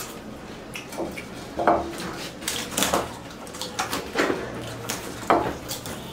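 Potato chips crunching and clattering on ceramic bowls and the table as two people bite them up without using their hands: about half a dozen sharp, irregular crisp crackles.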